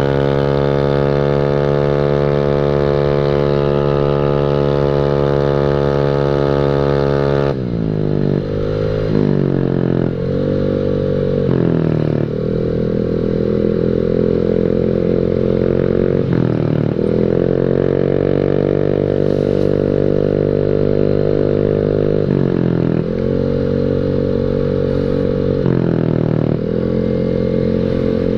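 Honda Beat scooter's single-cylinder engine through an aftermarket WRC 'mber' racing exhaust, heard from the rider's seat. It runs steadily at cruising speed, then about a third of the way in the note drops and climbs again several times as the throttle is closed and reopened.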